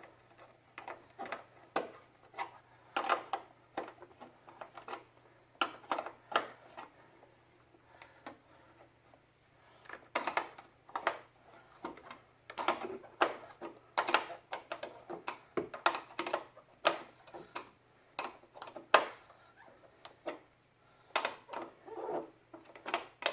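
Irregular light clicks and metallic taps of hands working a brake line fitting and tools, over a faint steady hum.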